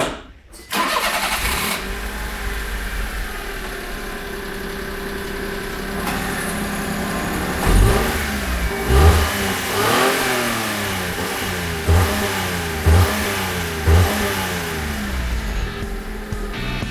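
A car engine starts just under a second in and settles into a steady idle, then is revved in a series of about six short blips, each rising and falling in pitch, through the second half.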